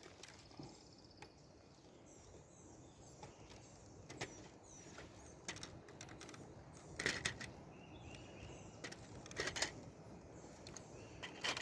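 Faint, scattered clicks and plastic rattles of LEGO Technic parts being handled and unclipped as the body comes off the truck, with louder clusters of clicks about seven, nine and eleven seconds in. Faint bird chirps are heard in the background.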